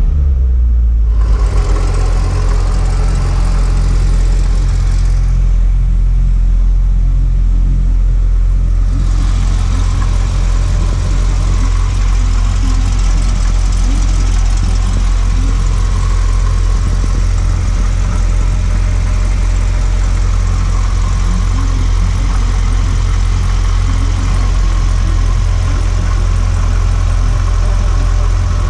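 2011 Corvette ZR1's supercharged 376-cubic-inch LS9 V8 idling steadily, with a deep, low sound.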